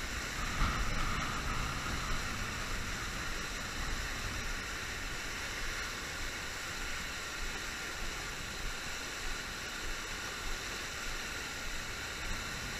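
Steady rush of river water pouring over a low-head dam and churning in the whitewater below it.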